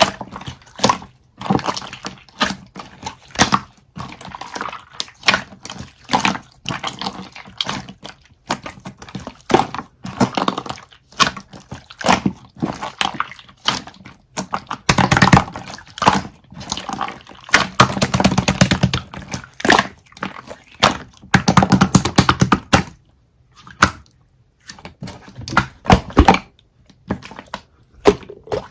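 Hands squishing and pressing slime: a fast, irregular run of wet clicks, crackles and pops, with a few short pauses.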